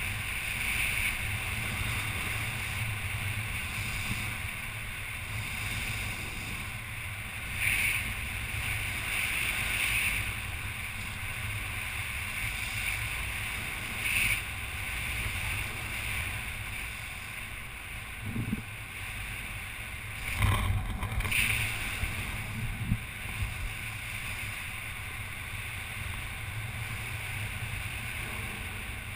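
Wind buffeting the microphone of a body-worn action camera: a steady low rumble. A few short knocks and rustles come from the wearer moving, about 8 and 14 seconds in and again around 20 seconds.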